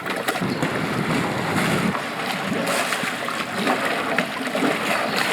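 Kayak paddle blades splashing and dipping in flat water, with a continuous rush of water around the boat.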